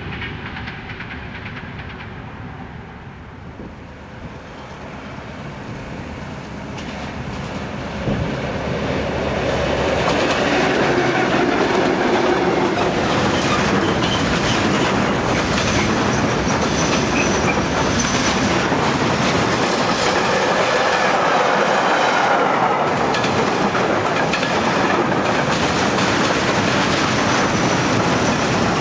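Freight train of covered wagons and tank wagons rolling past at close range, wheels clattering over the rail joints. The sound builds from quieter at first, jumps up sharply about eight seconds in, and then stays loud and steady.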